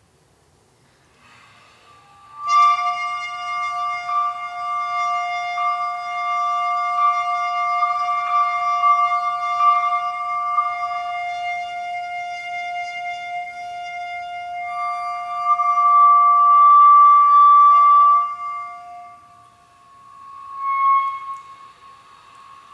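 Experimental music for hechtyphon and microtone duplex: after a faint start, a long held note with bright overtones enters about two and a half seconds in, and a second, higher pitch wavers and slides above it. Both fade out near the end, with one brief swell of the higher pitch.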